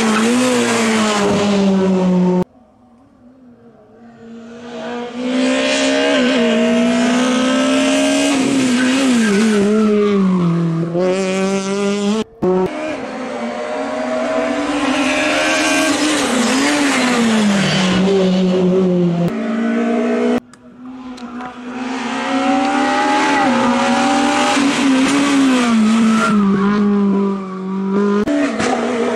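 Racing cars' engines at full throttle, several cars in turn, each climbing in pitch and dropping at gear changes as it accelerates through the bend. The sound breaks off abruptly between cars.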